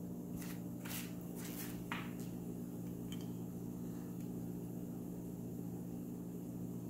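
Steady low machine hum made of several fixed tones, with a few faint clicks in the first couple of seconds and once or twice later.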